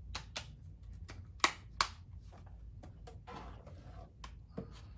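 Plastic Blu-ray cases and discs being handled: a series of sharp clicks and taps, the two loudest about a second and a half in, then a soft rustle.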